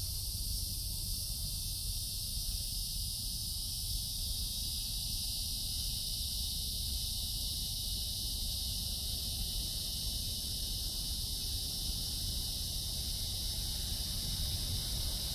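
Steady, high-pitched chorus of insects, unchanging throughout, with a low rumble underneath.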